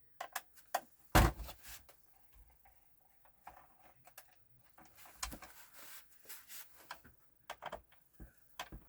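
Scattered plastic clicks and knocks from a PS4 console and its parts being handled during a teardown, the loudest knock about a second in.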